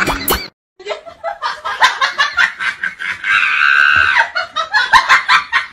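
Laughter, chuckling in quick repeated bursts, after a brief dropout about half a second in.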